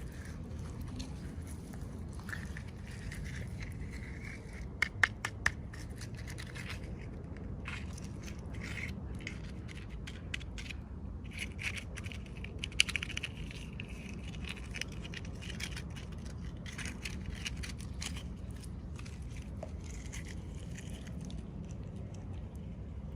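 Plastic toy packaging crinkling and scraping as it is handled and opened, with a quick run of sharp clicks about five seconds in, over a steady low hum.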